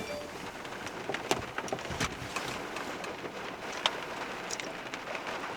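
Heavy rain falling on a car's roof and windshield, heard from inside the car: a steady hiss with scattered sharp drop impacts.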